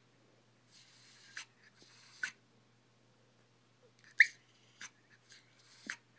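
Pomeranian whining and whimpering over a toy soccer ball that the other dog holds. Two breathy whines come in the first couple of seconds, then a few short, high squeaks from about four seconds on.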